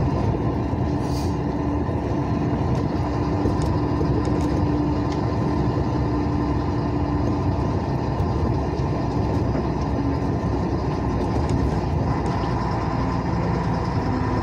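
Steady engine drone and tyre noise of a vehicle driving on a wet highway, heard from inside the cab; the engine tone drops lower about ten seconds in.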